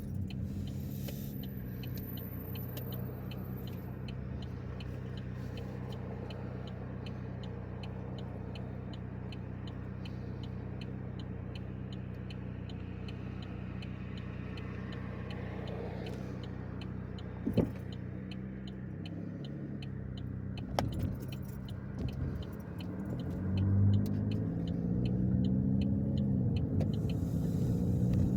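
A 2010 Chevrolet Equinox's engine heard from inside the cabin, running steadily under a regular light ticking. About two-thirds of the way in there is a sharp click, and near the end the engine note rises as the SUV accelerates.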